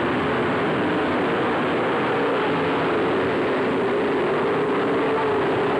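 A pack of late model stock car engines running hard as the field races around the oval. It is a steady, blended engine noise with one wavering engine note standing out.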